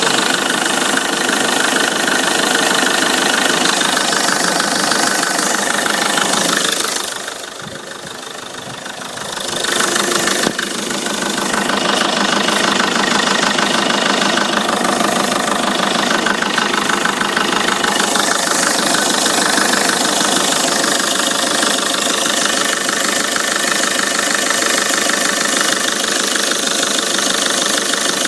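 Peugeot 307 2.0 HDi 136 four-cylinder turbodiesel running with a steady, knocking engine noise, the abnormal noise its owner cannot identify. It turns quieter for about three seconds around seven seconds in, then comes back.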